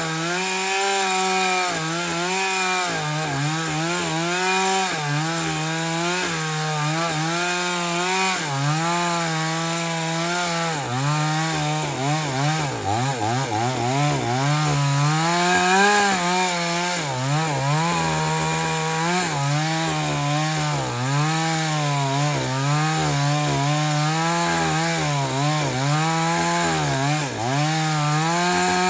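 JCK two-stroke chainsaw with a 22-inch bar running at high revs, apparently cutting wood. Its engine pitch holds steady at first, then from about ten seconds in dips and recovers again and again as the chain loads up in the cut.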